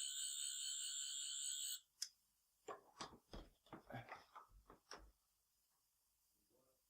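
Toy sonic screwdriver's electronic buzzing sound effect, a steady warbling high tone lasting about two seconds and cutting off, followed by a run of light clicks and knocks.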